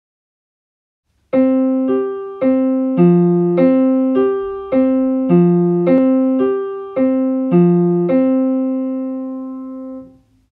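Digital piano playing a short beginner exercise: single notes struck at an even pace, about two a second, going back and forth between the hands and starting about a second in, ending on a long held note that rings and fades.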